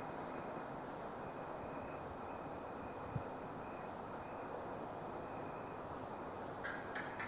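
Steady hiss of background noise in a speech recording, with one faint click about three seconds in.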